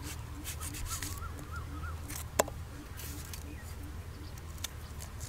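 A knife peeling the dry, papery skin off a red onion: short crackly rustles and scrapes, with one sharp tick about two and a half seconds in. Birds chirp faintly in the background.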